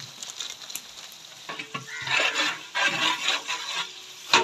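A long metal ladle scraping and stirring onions, green chillies and cashews frying in a large metal biryani pot, over a steady sizzle. The scraping strokes start about a second and a half in and are loudest in the middle.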